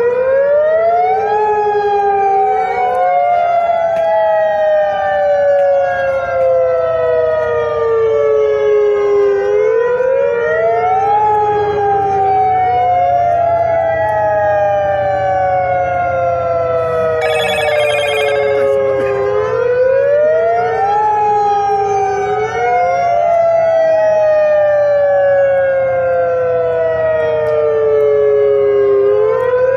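Outdoor warning siren wailing. Each cycle rises quickly, then falls slowly over about eight seconds, three times, with a second sweep trailing just behind it. A short run of rapid high beeps sounds about two-thirds of the way through.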